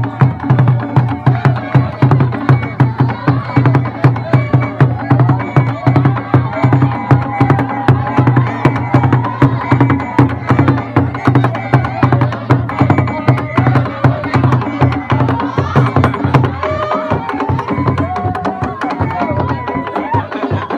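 Ensemble of goblet-shaped hand drums, some struck with sticks, playing a fast, steady dance beat, with voices over the drumming.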